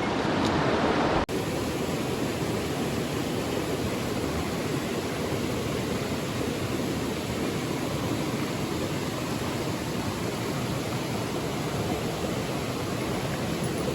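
Steady rush of flowing mountain-stream water, with a sudden momentary break about a second in.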